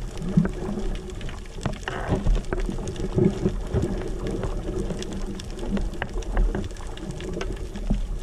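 Muffled underwater sound picked up by a camera below the surface: water movement with scattered clicks and crackles over a steady low hum.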